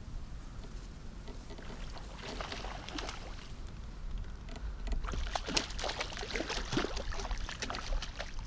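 A hooked pike splashing and thrashing at the water's surface as it is pulled in on a pole rod, with a first flurry about two seconds in and denser, louder splashing from about five seconds in.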